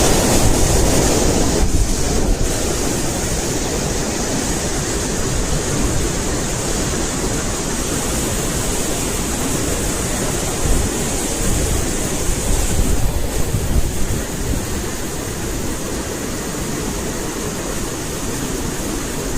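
Water pouring over a check-dam weir in a steady rush, with wind buffeting the microphone.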